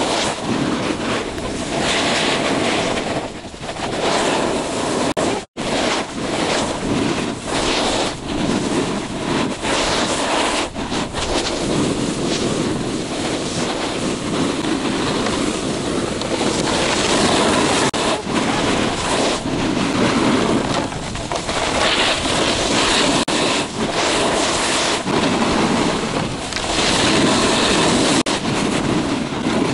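Wind rushing over the microphone and snowboard edges scraping and hissing over packed snow while riding down a slope, swelling and easing with each turn. The sound cuts out for an instant about five and a half seconds in.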